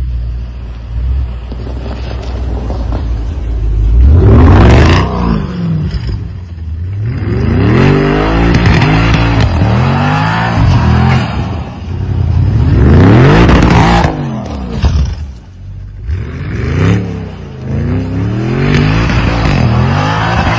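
Audi RS6 Avant's twin-turbo V8 revving up and down over and over while the car spins donuts in snow, with long, loud pulls about four seconds in and again near the middle. There is a hiss of snow spraying from the spinning tyres.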